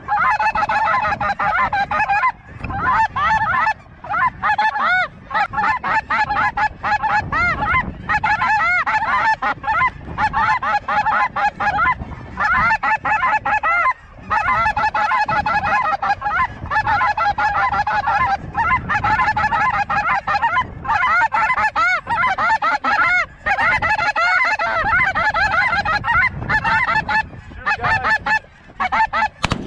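A large flock of snow geese honking: a dense, continuous clamour of many overlapping calls.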